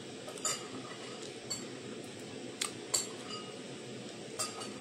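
Light, sharp clinks of tableware while someone eats, about six of them spread out, a few with a brief ring.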